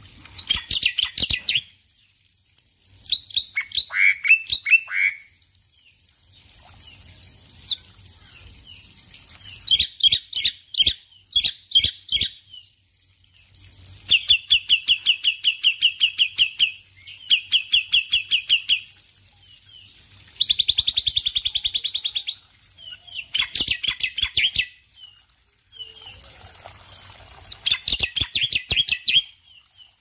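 Male black-winged myna (white starling) singing in about eight loud bursts of fast, repeated chattering notes and trills, with short pauses between them, over a faint steady sound of running water.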